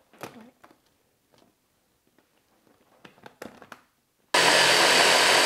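Light clicks and taps as an Epica hand blender's motor unit is set onto its chopper bowl. About four seconds in, the motor starts running steadily and loudly, grinding chunks of raw chicken breast and butter into ground chicken.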